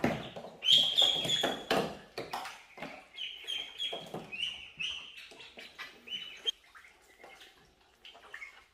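A flock of ducklings peeping: many short, high chirps overlapping. There are some louder splashes in the first two seconds.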